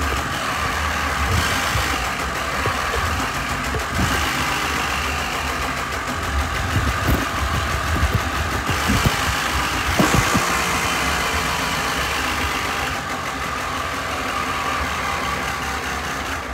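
Tractor engine running steadily, with a few sharp knocks and clunks about halfway through.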